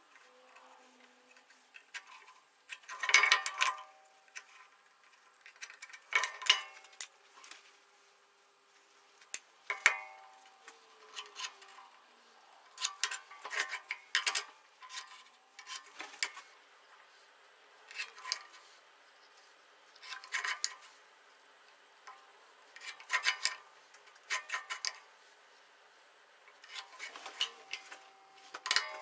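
Short bursts of scraping and rubbing with light metallic clinks, every two to three seconds: a steel square and a metal ruler being set down and slid across a wooden block while lines are drawn along them. Some clinks ring briefly.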